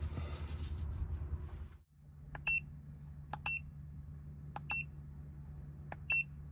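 Handheld OBD2 scan tool beeping while it is used to clear the engine fault code. After about two seconds of rustling, there are four short, high double beeps at uneven gaps.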